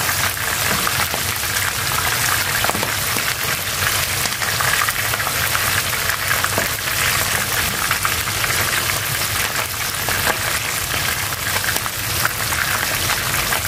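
Hot oil sizzling and crackling steadily around a tail section of ikan semah (mahseer) shallow-frying in a frying pan, with hot oil being ladled over the fish.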